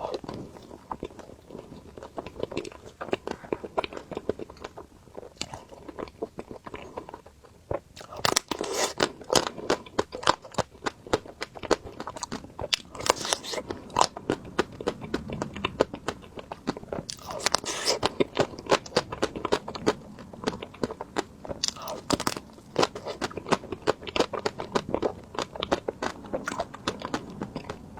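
Close-miked crunching as a person bites and chews crispy ice cream, a dense run of crackling bites that gets louder and busier about eight seconds in.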